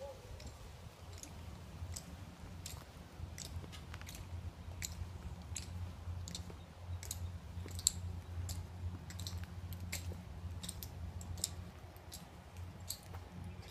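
Crisp, irregular clicks of an honor guard's dress shoes stepping on concrete as they carry a casket, about one or two a second, over a low steady hum.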